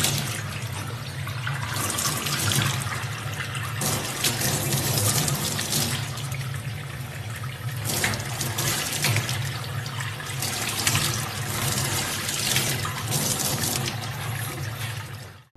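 Water from a faucet running into a stainless steel sink, splashing irregularly as a young chimpanzee rubs its hands under the stream, over a steady low hum.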